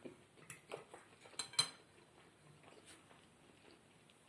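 Cutlery clinking against a plate: about five sharp clicks in the first two seconds, the loudest a little after one and a half seconds in, then quiet.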